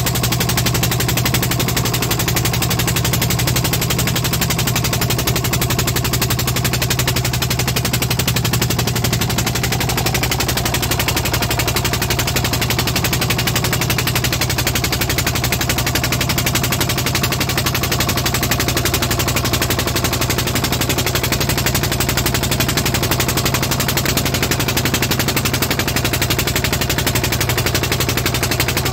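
Small fishing boat's engine running steadily under way: a fast, even chugging over a strong low hum, unchanging in speed.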